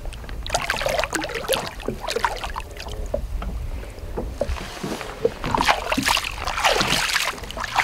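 Lake water sloshing and splashing beside a boat as a musky is held in the water to revive it. About five seconds in, a louder burst of splashing comes as the fish kicks its tail and pulls free on release.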